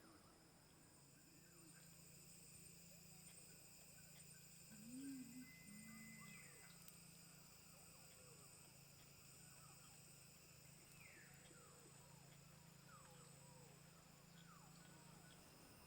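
Faint tropical forest ambience: a steady insect drone with several high held tones, scattered short falling bird calls, and a brief louder low two-part sound about five seconds in.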